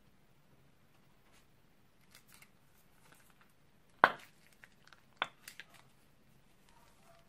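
Slime being squeezed from a plastic piping bag into a glass baking dish: a few faint ticks, then a sharp click about four seconds in and another about a second later, followed by a few small ticks.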